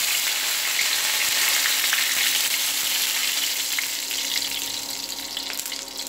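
Curry leaves sizzling in hot oil in a pan: a dense, steady hiss with scattered small crackles and pops, fading somewhat over the last couple of seconds as the leaves crisp.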